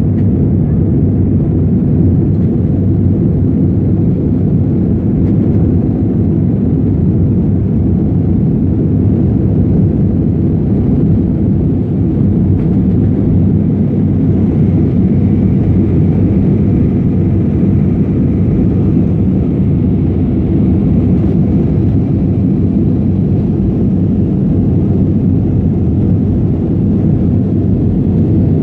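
Airliner engines running steadily during takeoff, a loud constant low rumble.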